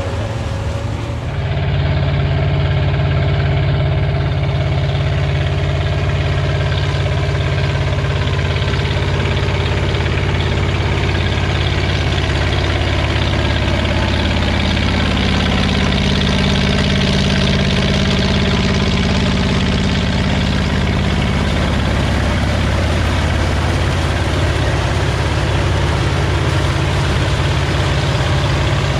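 Engine of vintage corn-harvesting machinery running steadily, growing louder about a second and a half in.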